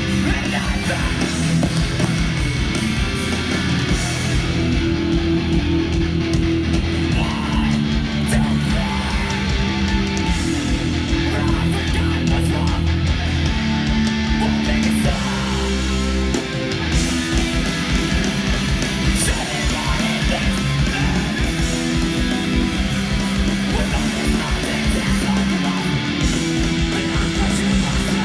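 A hardcore band playing live at full volume: distorted electric guitars, bass and drums, with a brief drop in the sound about sixteen seconds in.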